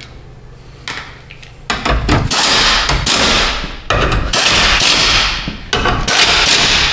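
Handheld impact wrench hammering as it runs bolts down, in three bursts of roughly two seconds each starting about a second and a half in.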